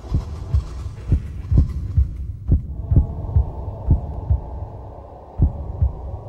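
Slow heartbeat thumping on a soundtrack, a low double beat about once a second, over a steady low hum. The beats drop out for a moment a little before the end, then resume.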